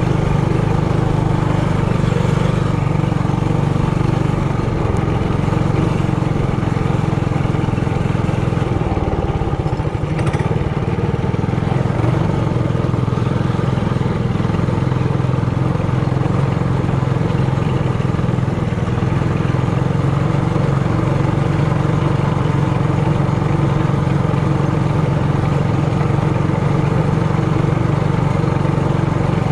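Trailmaster Hurricane 200X mini bike's 196cc single-cylinder four-stroke engine running steadily while riding along a dirt road, easing off briefly about ten seconds in.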